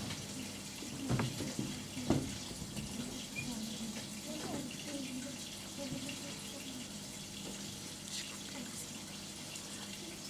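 Steady hiss like running water, with faint voices murmuring and two short knocks about one and two seconds in.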